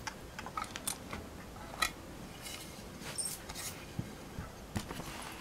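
Small hard plastic Playmobil toy pieces being handled, giving scattered faint clicks and taps, with a short stretch of light rustling about halfway through.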